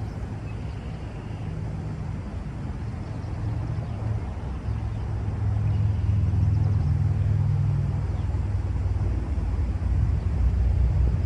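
Road traffic passing: a vehicle's low rumble that swells from about four seconds in and stays up to the end.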